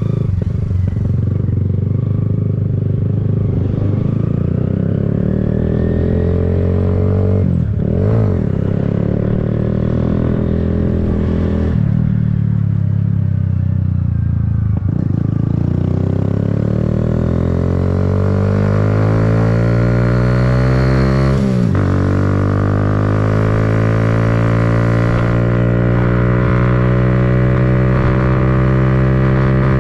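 Kawasaki Z125's single-cylinder four-stroke engine pulling through the gears under way. Its note climbs steadily between shifts and drops sharply at each of four gear changes, the longest climb running from about halfway to the last shift.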